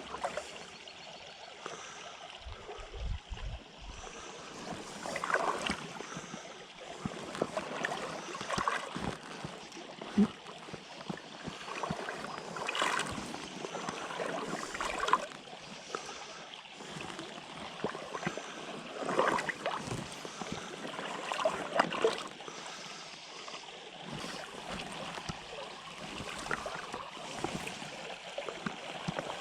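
Water of a small stream running and sloshing, with irregular splashes.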